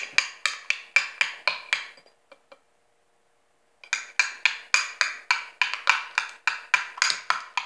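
Metal spoon clinking against the inside of a drinking glass as a drink is stirred: quick ringing clinks about five a second, pausing for nearly two seconds about two seconds in, then starting again.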